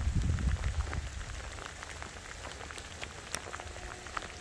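Rain falling steadily on grass, with scattered ticks of single drops. A low rumble in the first second or so fades out.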